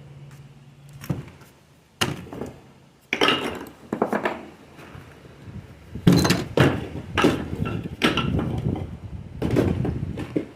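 Stone masonry work: rough stones and mortar being set and knocked into place, sharp knocks about a second apart, then a longer stretch of clattering and scraping.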